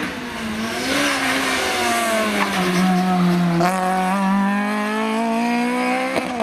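Historic rally car's engine at full rally pace: the revs drop as it comes off the throttle into a bend, then climb steadily as it accelerates away under power. There is a short sharp crack near the end.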